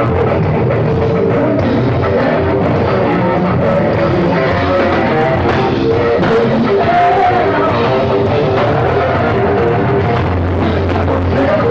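Rock band playing a song: electric guitar and drum kit, loud and steady throughout.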